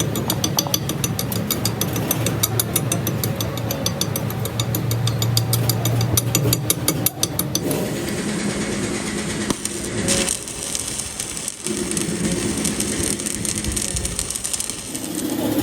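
Metal lathe running, its gears giving a rapid, even ticking over a steady hum; about halfway through the ticking stops and a steadier hiss continues.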